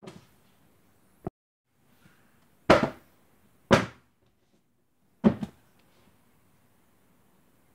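Paperback books set down hard onto a table: a light knock, a small click, then three loud flat thumps, the last after a slightly longer pause.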